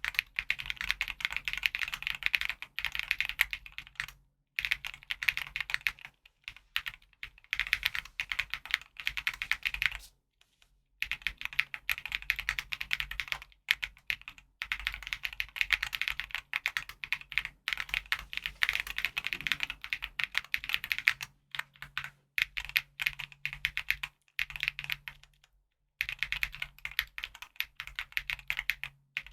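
Typing on a custom-built KBDfans TOFU60 2.0 full-aluminium 60% mechanical keyboard with Geon Clear switches, a polycarbonate plate and JTK keycaps. Rapid keystroke clacks come in bursts of a few seconds, with short pauses between them.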